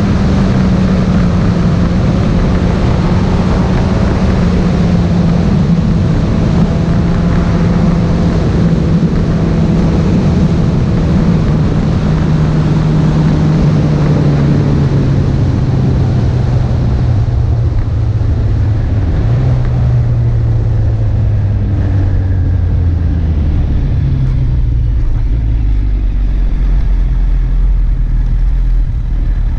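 Motorcycle engine running while the bike slows down, its note falling steadily lower over the whole stretch, under a rush of wind and road noise that eases off in the second half. Near the end the engine settles to a low, slow note.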